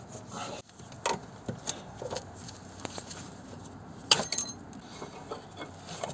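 Hands working on the electric parking brake unit under a car: irregular metallic clicks, clinks and knocks, the sharpest clink about four seconds in.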